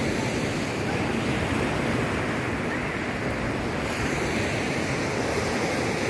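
Sea surf washing up on a sandy beach, a steady rush of breaking waves, with some wind on the microphone.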